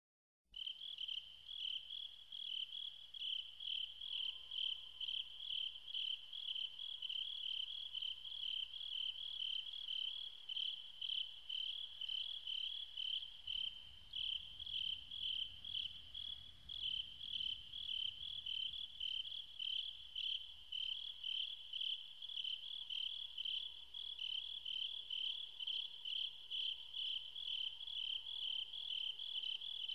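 Insect chirping, cricket-like, in an even rhythm of about two high-pitched chirps a second.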